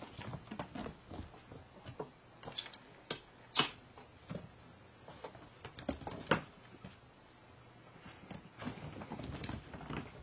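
Kittens playing on a hardwood floor: irregular taps, scrabbling paws and knocks against a cardboard box, with two sharper knocks in the middle and a busier patch of scuffling near the end.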